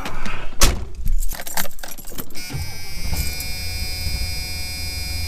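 Keys jangling among a few knocks, then a car engine starts about two seconds in and runs steadily with a low hum.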